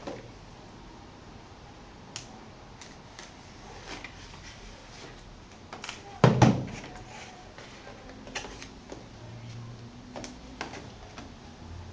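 Apple keyboard and its packaging being handled: scattered light clicks and taps, with one heavy thump about six seconds in.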